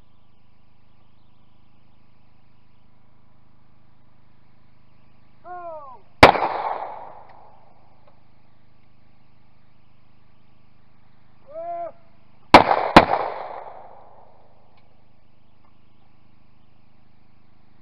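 Clay-shooting shotguns: a short shouted call, then one shotgun shot; some six seconds later another call and then two shots in quick succession, about half a second apart, each with a short ringing tail. The call is the shooter's signal that releases the clay.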